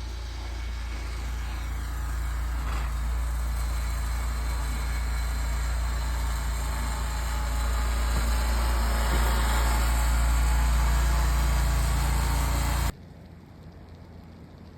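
A steady low rumble with hiss, like an engine running or wind on the microphone, that cuts off abruptly about thirteen seconds in, leaving a quieter even hiss.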